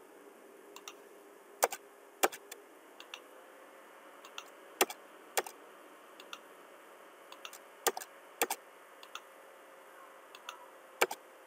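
Sharp separate clicks from a computer mouse and keyboard as points are picked in a drawing program. The louder clicks come in three pairs about half a second apart and once more near the end, with fainter ticks between them over a faint steady hiss.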